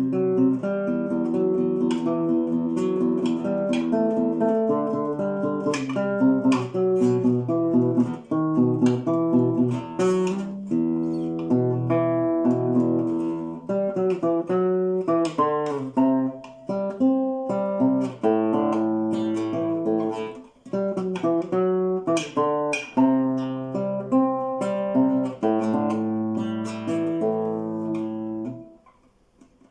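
Acoustic guitar played solo, picking and strumming ringing chords. The playing stops about a second before the end.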